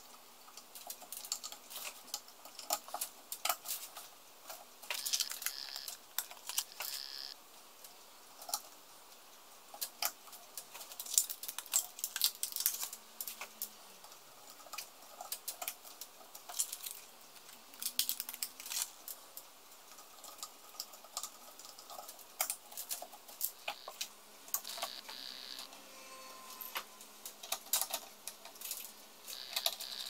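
Irregular small plastic clicks and taps of memory sticks being handled and pressed into a motherboard's RAM slots, the slot latches snapping shut.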